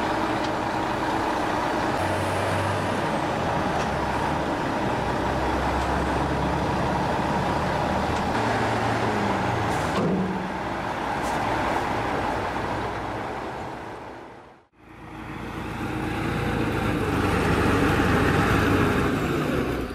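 Heavy truck engine running steadily during a cable tow of a semi-truck stuck in a ditch. After a brief fade about two-thirds of the way through, a Kirovets K-700 tractor's diesel engine is running in mud.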